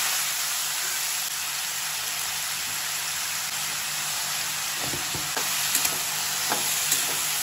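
Potato pieces and green beans sizzling in hot oil in a steel kadai, a steady hiss just after they hit the oil. From about five seconds in, a steel spatula clicks against the pan a few times as the vegetables are stirred.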